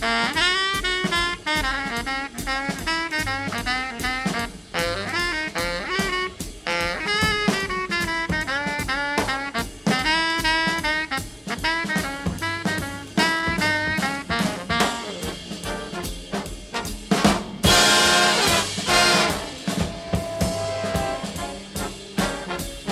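Background jazz music: a horn melody over a drum kit, with a fuller, louder passage about three-quarters of the way through.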